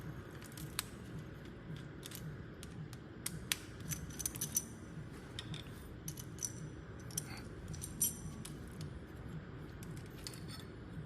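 A screwdriver working screws loose from metal parts: scattered faint clicks and light metallic clinks.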